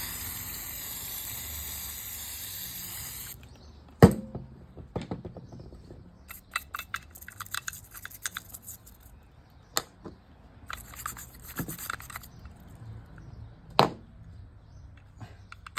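A spray hissing steadily, cutting off suddenly about three and a half seconds in; then small metal parts of a Penn fishing reel clinking and rattling as they are handled, with three sharp knocks about four, ten and fourteen seconds in.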